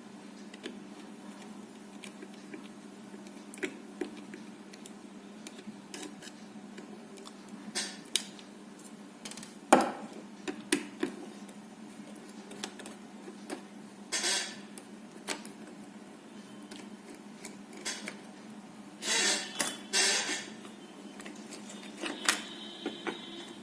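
Scattered small clicks, taps and short scrapes of a handheld radio's speaker-microphone being taken apart by hand, its plastic housing and circuit board handled and removed; the sharpest click comes about ten seconds in, with brief rustling scrapes around the middle and near the end. A steady low hum runs underneath.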